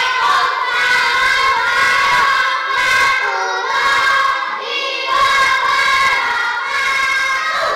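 A class of young schoolchildren singing together in unison, high voices holding long notes in short phrases.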